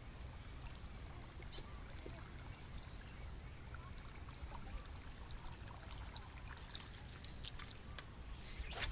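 Small water splashes and trickling, growing busier in the second half, with one louder splash just before the end, over a low steady rumble.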